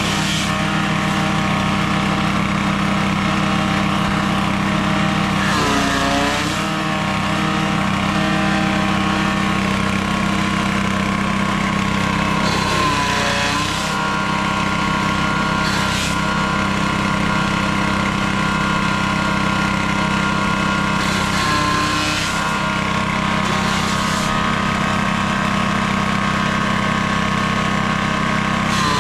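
Grass chopper driven by a small 7 hp petrol engine, running steadily while grass stalks are fed through its blades. The engine's pitch sags briefly about three times as bundles load the cutter.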